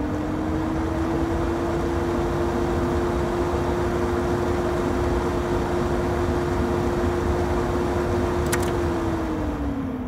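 Loud kitchen exhaust fan running: rushing air over a steady motor hum. The hum's pitch sinks near the end as the fan begins to spin down.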